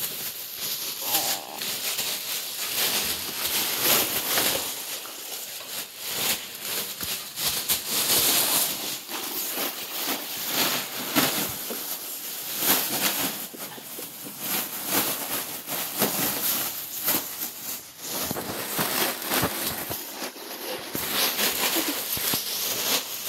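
Foil balloons crinkling and rustling as a rottweiler paws and noses through them: a continuous crackly rustle with many sharp crackles.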